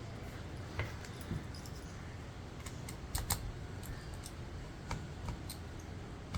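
Scattered small, faint clicks and ticks of hands and a tool working on an opened laptop's internals while the M.2 SSD is being removed, with a low steady hum underneath.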